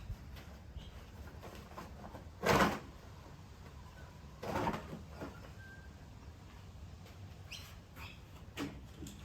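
Birds chirping in short, high calls, with two brief louder swishes about two and a half and four and a half seconds in, the first the loudest.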